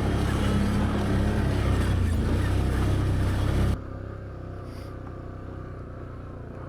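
Can-Am Outlander 850 ATV's V-twin engine running steadily in low range on a rough trail. About four seconds in it drops suddenly to a quieter, duller engine sound.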